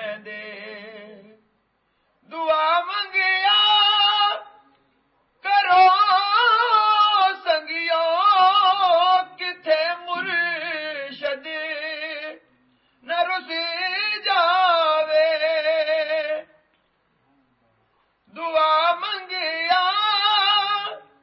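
A man singing a Punjabi Sufi devotional song unaccompanied, in a high voice. He sings in long, heavily ornamented phrases with wavering pitch, four of them, separated by short silences.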